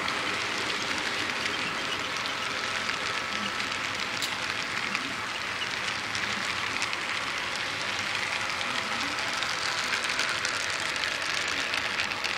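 HO-scale model freight train rolling past close by, its small metal wheels on the track making a steady rolling rattle with faint clicks.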